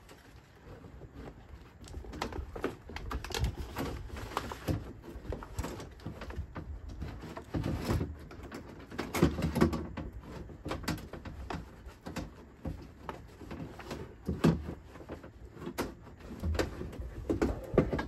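Irregular knocks, clicks and rustling as a new window regulator assembly is fed into a 2004 Chevrolet Avalanche's door through the access hole, the metal track knocking against the door's inner panel. The knocks come thicker about halfway through and again near the end.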